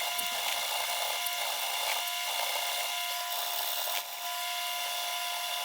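Steady mechanical whine with a hiss from a small workshop tool running, with a few faint ticks.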